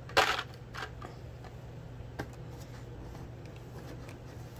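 Hot Wheels cars in plastic blister packs on cardboard backing cards being pulled out of a cardboard shipping case: a loud rustle and clatter of plastic and card right at the start, then a few softer rustles and a sharp click.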